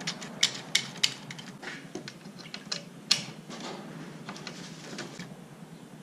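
Irregular sharp metal clicks and taps as the mesh radiator screen of a New Holland TL100 tractor and its fasteners are worked loose by hand, the loudest click about three seconds in.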